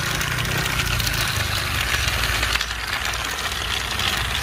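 Battery-powered toy trains running on plastic track: a steady whir from their small electric motors and gears.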